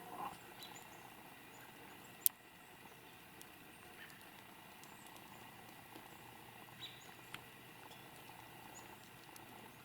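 Faint, steady outdoor background with one sharp click about two seconds in and a few softer ticks.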